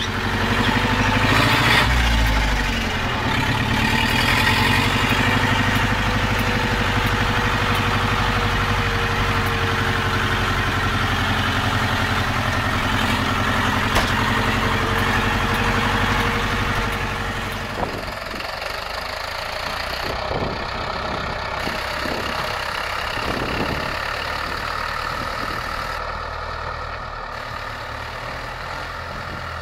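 International Harvester 644 tractor's four-cylinder diesel engine revving up as the tractor pulls away, then running steadily under way. About two-thirds of the way through the sound drops suddenly to a quieter, steady idle.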